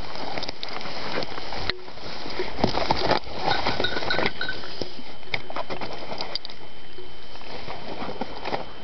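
Footsteps and rustling through undergrowth on a steep slope, with scattered clicks and knocks of handling noise on the camera.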